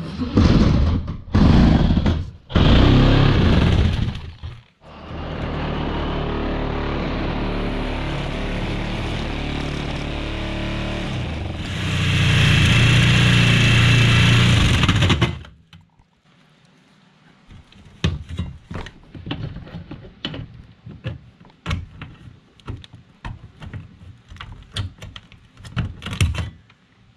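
A handheld power tool runs in a few short loud bursts, then steadily for about ten seconds, louder for its last few seconds. After it stops, metal vent parts give scattered light knocks and clicks as they are handled and fitted.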